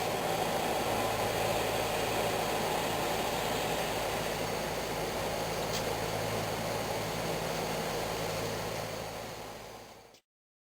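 Steady machine noise with a low hum underneath, fading out and cutting off just before the end.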